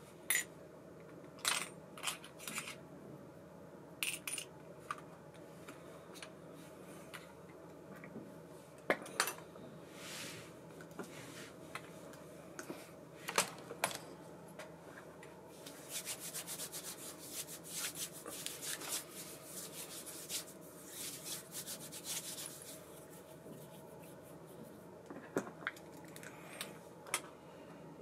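Small metal parts of an ABU Ambassadeur 2500C baitcasting reel being handled and worked: scattered sharp clicks and clinks, with a denser run of rapid fine ticking for several seconds around the middle.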